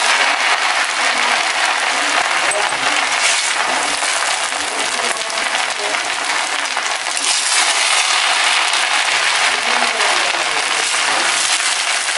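Sweet rice sizzling and crackling in a hot stainless steel pan while a metal spoon stirs it, clinking and scraping against the pan.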